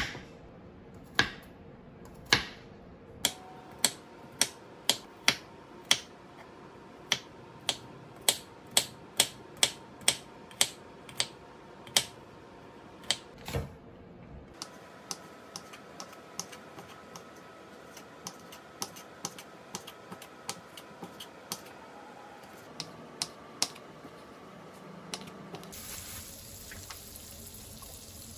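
Kitchen knife chopping on a cutting board in a steady run of sharp strokes, about two a second, fainter from about halfway. Near the end a steady sizzle of frying starts.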